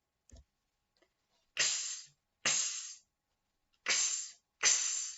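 A woman's voice making the unvoiced phonics sound "ks" for the letter x, four times: short hissing bursts, each starting with a click-like "k".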